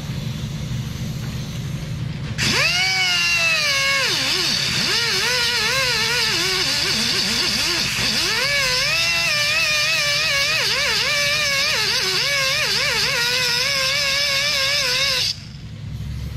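Air-powered cutoff wheel starting about two seconds in and cutting a slit through the semi truck carrier bearing. Its whine wavers and dips in pitch as the wheel bogs in the cut, over a steady hiss, and stops suddenly near the end. A low hum runs underneath before the tool starts.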